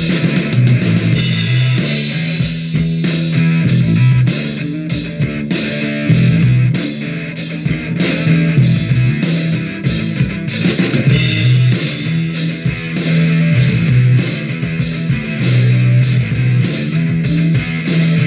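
Rock music with guitar, bass and a steady drum-kit beat.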